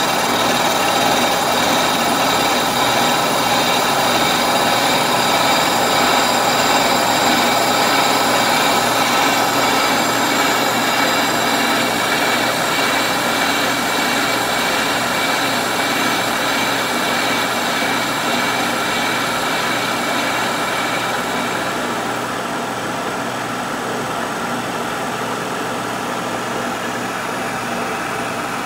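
Kearney & Trecker horizontal milling machine face milling cast iron with a 3.5-inch high-speed steel shell mill: a steady, dense cutting noise with several steady tones over the machine's running. The higher part of the sound fades in the last several seconds.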